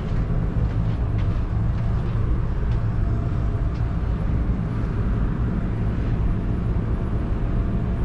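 Steady low mechanical hum of building HVAC equipment running, with a few faint knocks.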